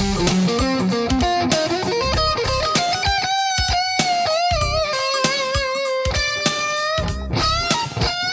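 Electric guitar playing a C minor blues lick built on a C minor 7 flat 5 sweep arpeggio. Fast runs of picked notes give way to bent notes held with vibrato.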